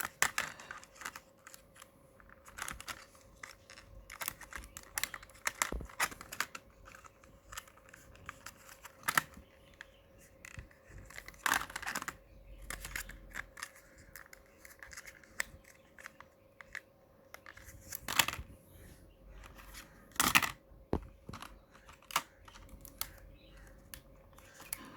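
Plastic packaging being handled and opened to take out a RAM module: irregular clicks, crinkles and tearing noises, a few louder snaps among them, over a faint steady hum.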